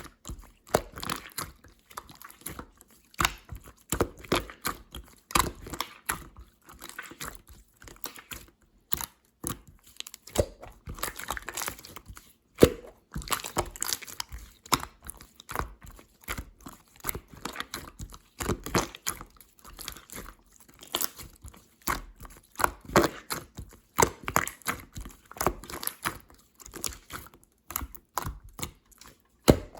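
Clear slime being worked by hand, giving irregular sticky clicks and pops.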